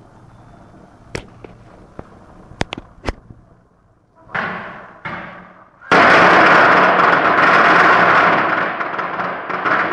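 A few sharp isolated clicks, then about six seconds in a long string of Chinese firecrackers goes off in a loud, dense, continuous rapid-fire crackle.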